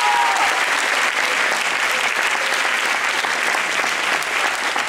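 A crowd applauding, steady and sustained.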